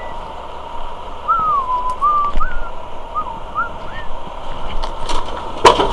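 A person whistling a short, wavering tune of a few gliding notes over a steady faint hum. Footsteps crunch on gravel, and a sharp knock comes near the end.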